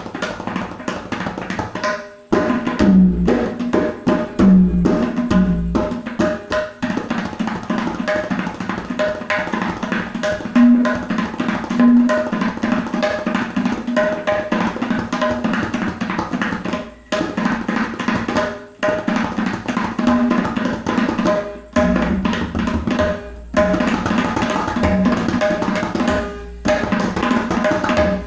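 Tabla played in a fast, dense stream of strokes: the treble drum rings on one tuned note while the bass drum adds deep strokes that bend in pitch, with a few brief pauses, a rhythmic imitation of running hooves or a train.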